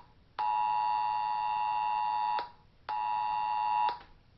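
Electronic alarm tone repeating: a steady high beep lasting one to two seconds at a time, with short half-second gaps between.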